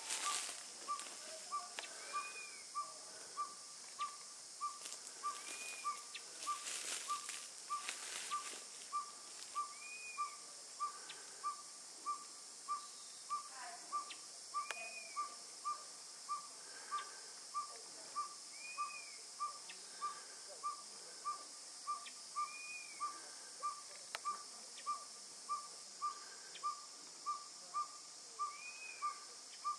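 Northern pygmy-owl singing: a long, steady series of single short toots at one pitch, about three every two seconds.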